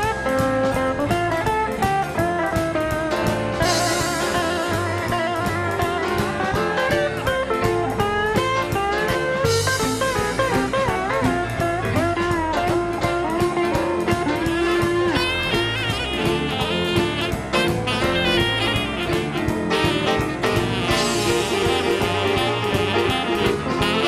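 A live western swing band playing an instrumental break of an upbeat boogie: a steel guitar solo over electric guitar, bass and drums, with a saxophone coming in near the end.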